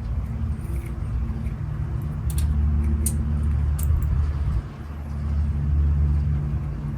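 A low, steady engine-like rumble, as of a motor vehicle running nearby, that swells about two seconds in, dips briefly past the middle and swells again, with a few light clicks over it.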